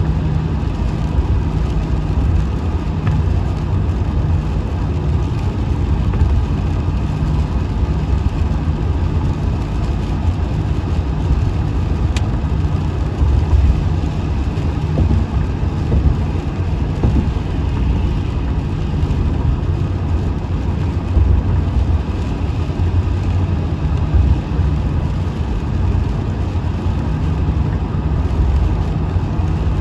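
Steady engine and road rumble of a vehicle driving on the highway.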